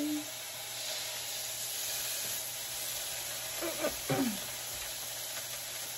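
Pork belly sizzling on a hot griddle, a steady frying hiss that swells about half a second in.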